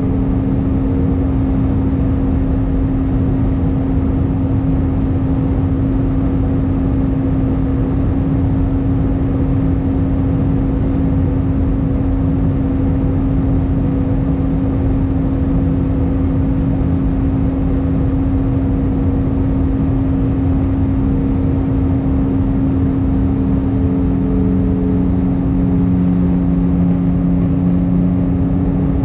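Airliner cabin noise inside an Airbus A319 in flight: a loud steady rumble of the engines and airflow, with a constant low hum and a fainter tone above it that drifts slightly in pitch.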